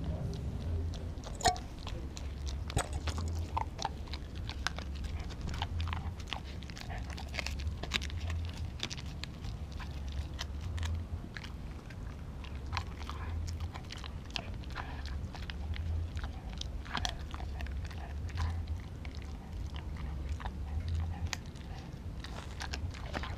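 A pit bull–German shepherd mix dog chewing raw meat close to the microphone: irregular wet crunches and sharp clicks of its teeth. A low throb pulses about once a second underneath.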